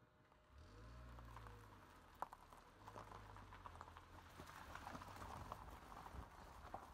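Car tyres rolling slowly over a gravel driveway, heard faintly from inside the car: a dense crackle of small stones over a low rumble that starts about half a second in.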